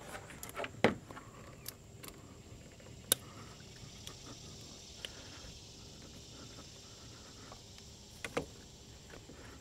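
A few light metallic clicks and taps, spread several seconds apart, from extended-reach hose clamp pliers working a spring hose clamp on a radiator hose. The sharpest click comes about three seconds in, over otherwise quiet surroundings.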